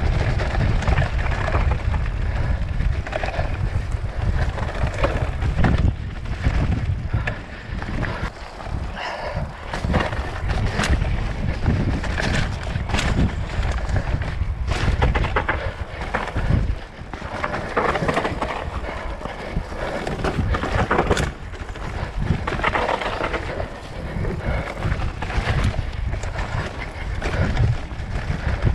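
Mountain bike descending rough dirt singletrack: tyres rolling and the bike rattling, with many scattered clicks and knocks over the bumps, under a constant low rumble of wind on the microphone.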